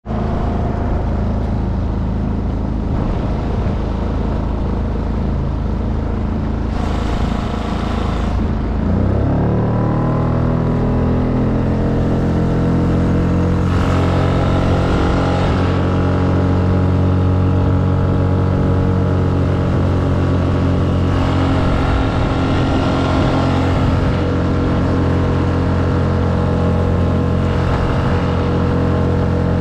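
Small outboard motor on a kayak running, throttling up with a rise in pitch about nine seconds in, then holding steady at cruising speed.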